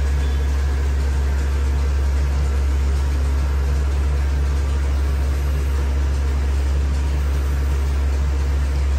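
Electric hair clipper running close to the microphone while cutting hair, a loud, steady low buzz.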